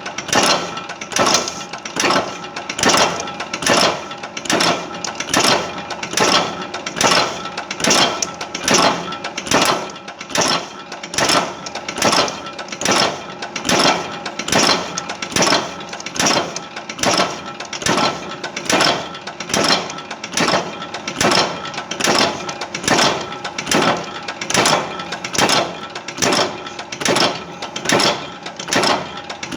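A machine working in a steady rhythm, about one and a half strokes a second, each stroke a sharp clatter over a steady tone, without a break.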